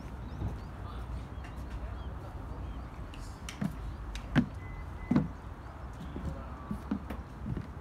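Footsteps on a hard surface at a walking pace, a little faster than one step a second, over a steady low rumble.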